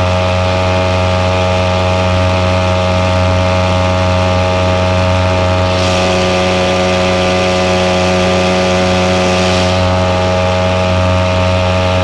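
Small 52cc 3hp two-stroke outboard motor running at a steady, unchanging speed as it pushes an aluminium boat along. A rushing hiss joins in for about four seconds near the middle.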